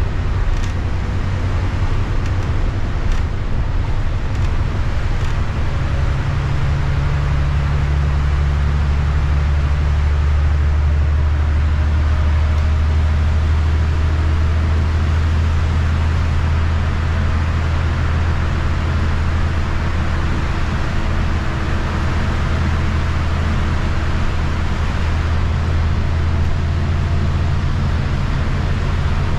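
City bus engine and drivetrain drone, heard from inside the passenger cabin, with tyre noise on a wet highway. The engine note grows stronger about six seconds in, and a few light rattles click in the first few seconds.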